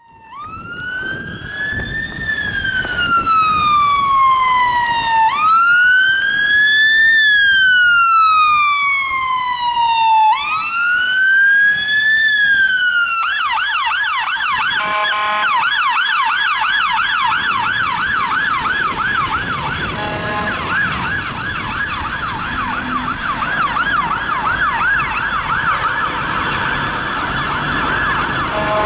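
Fire engine siren on a London Fire Brigade Mercedes-Benz Atego pump, loud and close. It sounds a slow wail, rising and falling three times, then switches about 13 seconds in to a fast yelp. Short, deeper, steady bullhorn blasts break in a few times.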